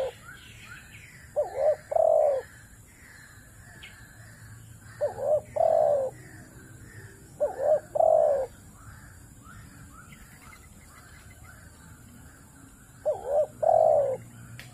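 Dove cooing: four phrases, each two short notes followed by a longer, falling coo, spaced a few seconds apart. Small birds chirp steadily behind.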